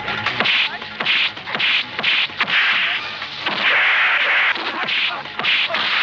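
Film fight sound effects: a rapid series of whooshing swings and sharp whacks of punches and kicks landing, about eight in a row, one longer swish about two-thirds through.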